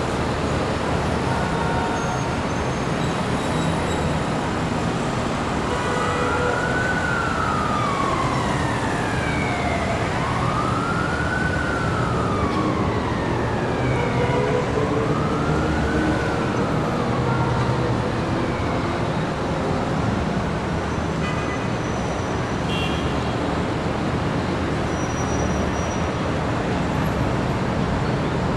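Busy city street traffic, a steady rumble of passing vehicles, with an emergency vehicle siren wailing through it from about a fifth of the way in: three slow rising-and-falling sweeps over about ten seconds, then the traffic alone.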